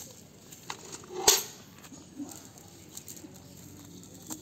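Fish being picked out of a cast net on dry leaf litter: light rustling with scattered small clicks and taps, and one louder sharp knock about a second in.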